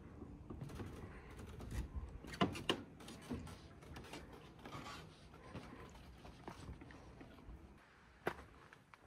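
Scattered light clicks and knocks over a low background rumble, the loudest a pair about two and a half seconds in and a single sharp one near the end.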